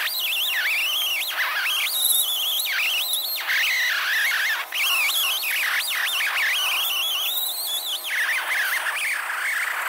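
Right-angle die grinder with a Scotch-Brite abrasive disc scrubbing old RTV gasket sealant off a transmission oil pan's flange: a continuous high-pitched whine whose pitch wavers up and down.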